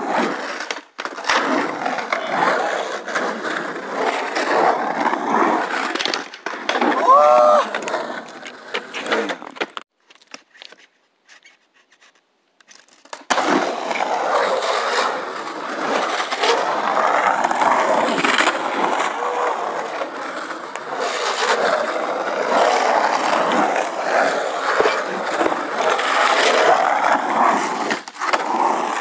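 Skateboard wheels rolling and grinding over the rough concrete of an empty swimming pool, with sharp clacks from the board. A brief pitched sound comes about seven seconds in. The rolling drops out for about three seconds near the middle, then resumes.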